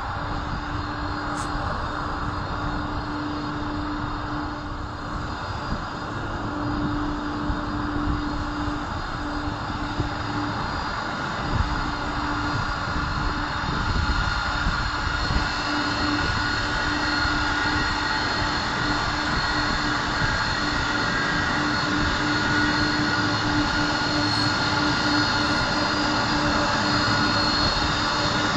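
Boeing 747 Dreamlifter's four turbofan engines running at low taxi thrust as the aircraft turns on the runway: a steady rushing hum with a low drone and a thin high whine, slowly growing louder.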